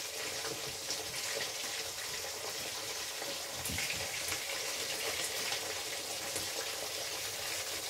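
Vegetable pieces frying in hot oil in a pan, a steady sizzling hiss with small crackles, stirred now and then with a wooden spatula.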